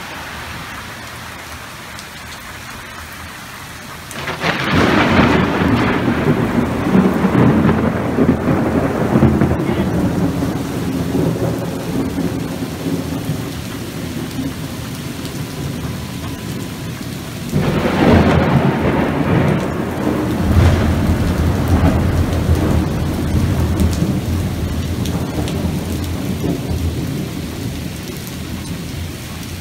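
Heavy rain pouring steadily, with two loud thunderclaps, about four seconds in and again past the middle, each rolling on in a long low rumble that slowly fades.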